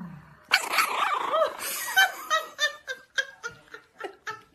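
French bulldog puppy barking: a burst of high yaps about half a second in, then a run of short yips that grow fainter toward the end.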